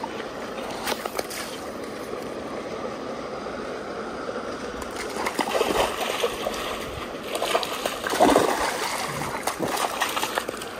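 Steady rush of flowing floodwater, with irregular splashing growing louder in the second half.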